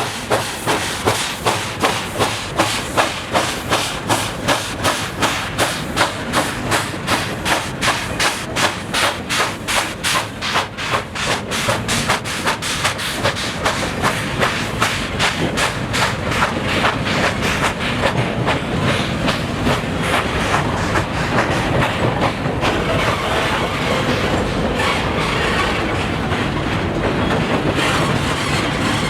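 A train of spoil wagons hauled by a JS-class 2-8-2 steam locomotive on the move: a regular beat of about two strokes a second through roughly the first half, giving way to a steadier rumble and clatter of wagons rolling on the rails.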